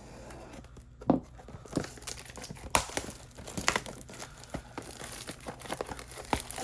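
Plastic wrapping on a trading-card box being torn open and crinkled: a run of sharp crackling rustles starting about a second in.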